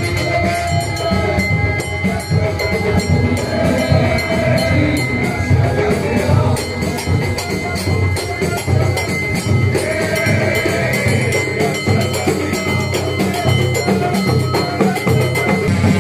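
Festive Moroccan wedding music: group singing over a fast, steady beat of hand drums and tambourines.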